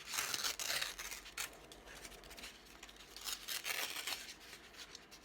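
Paper being handled, with rustling and scraping in irregular short bursts, most of them in the first second and a cluster about three and a half seconds in.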